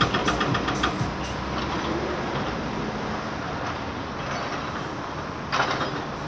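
Steady traffic noise, an even wash of sound, with a fast regular ticking that stops about a second in and a short louder surge near the end.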